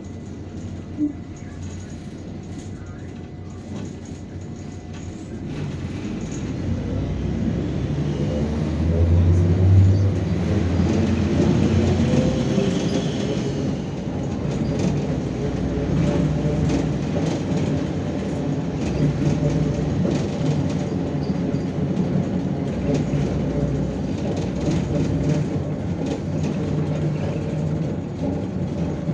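Inside a MAZ-103 city bus: the diesel engine is low at first, then rises as the bus pulls away about six seconds in, peaks around ten seconds, and settles into a steady run as the bus drives, with many small clicks and rattles.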